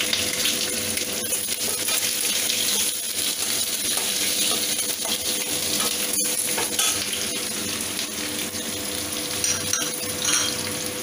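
Chopped green capsicum sizzling in hot oil in an aluminium kadhai, stirred with a flat metal spatula that clicks against the pan. The sizzle is a steady hiss.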